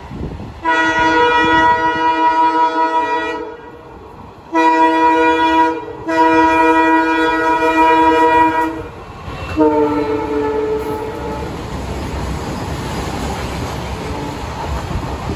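Indian Railways freight locomotive's air horn sounding four blasts: a long one, a short one, another long one, and a shorter last one that fades. The steady rumble of the passing train follows.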